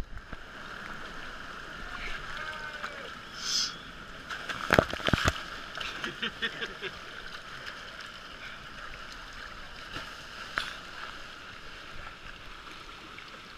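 Steady rush and slosh of water, with a brief hiss and a few sharp slaps about five seconds in.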